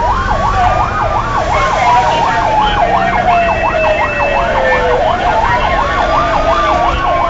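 Fire engine sirens sounding together, heard from inside the moving truck: a slow wail rising and falling, overlaid by a fast yelp that cycles about three times a second, with the engine's low rumble underneath.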